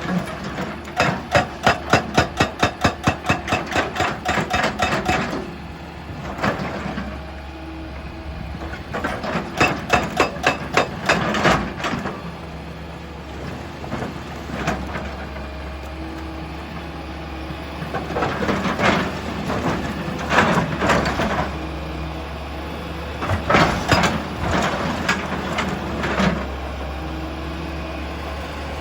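Heavy machinery with a steady low engine hum, broken by bursts of rapid, evenly spaced banging of rock and metal, about three or four knocks a second, in two long runs and then scattered strikes near the end.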